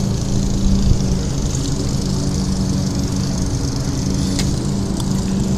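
A steady mechanical drone with a constant low hum, like a small engine or motor running, with a couple of sharp clicks in the second half.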